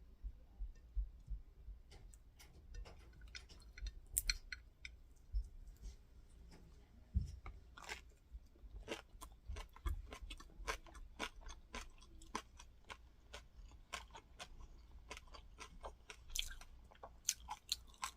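Close-up chewing of crunchy fried crispy rice cake (cơm cháy), with many short sharp crunches as the brittle rice is bitten and chewed.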